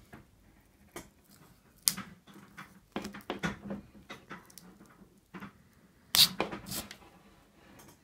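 Scored plastic outer jacket and metal shield of a 48-fiber optic cable being twisted and pulled off by hand: a series of sharp cracks and scrapes, loudest about six seconds in.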